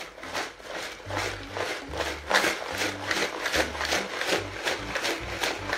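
Ice and rock salt rattling inside a plastic jar shaken hard by hand to freeze shaken ice cream, in quick, even, repeated strokes. Background music plays under it.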